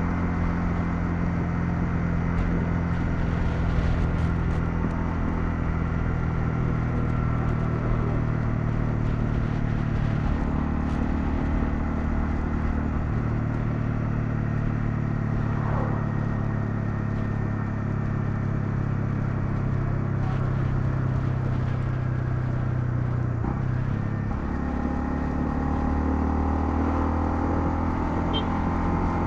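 Honda CL250's single-cylinder engine running on the move, heard from the bike. Its note holds steady and then steps to a different pitch a few times as the revs change, over a steady road rush.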